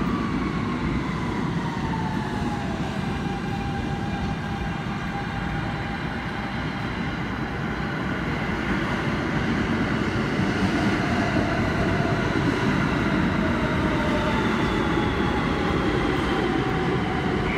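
New York City subway train, an R160B on the Q line, running with a steady rumble. The whine of its traction motors glides down in pitch as it slows, most clearly in the first few seconds and again near the end.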